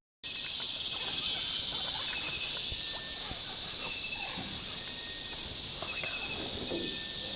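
Dense insect chorus, a steady high-pitched buzz, with a few short pulsed chirping trills standing out now and then.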